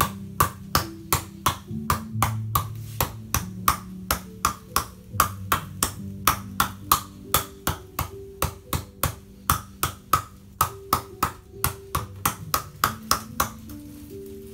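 Hands striking a person's back in a percussive massage (tapotement), sharp slaps about three a second, over background music of slow held low notes.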